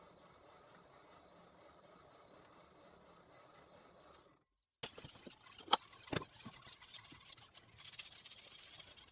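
A faint steady hum that cuts off about four seconds in. Then scattered clicks and knocks of wood and small hardware being handled, one of them louder, with a short hiss near the end.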